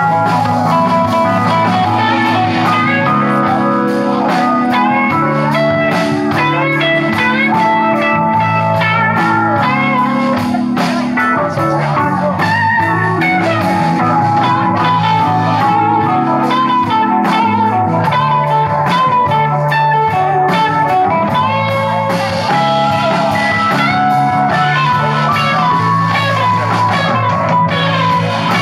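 Live band playing an instrumental passage of a bluesy rock song: hollow-body electric guitar and electric bass over a steady beat.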